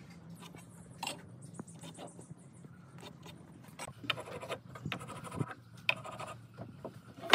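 Marking tools scratching on timber: a pencil drawn along a steel square, then a wooden marking gauge's pin scoring a line along a board, with light clicks of tools on wood and a sharper knock at the very end.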